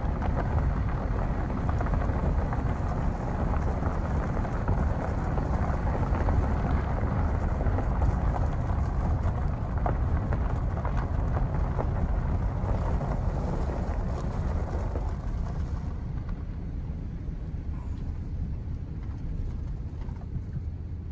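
A vehicle driving, heard as a steady low noise with a wash above it, easing off from about three-quarters of the way through.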